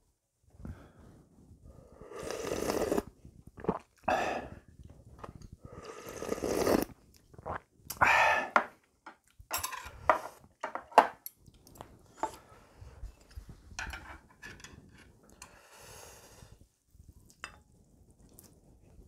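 Hot ramen broth slurped from a spoon, several long slurps, then clicks and clinks of metal chopsticks against the bowl as the noodles are stirred.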